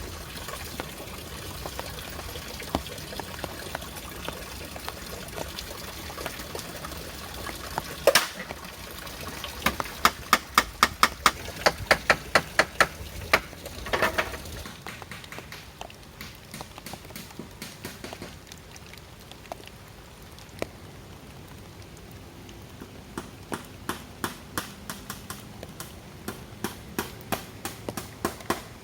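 Steady trickling and running water, with two runs of sharp, rapid knocks at about two to three a second, the first and louder one about a third of the way in and a fainter one near the end.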